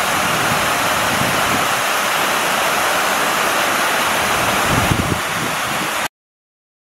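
Steady rushing of an artificial waterfall cascading over a rock wall into a pool, with a few low bumps about five seconds in; the sound cuts off abruptly about six seconds in.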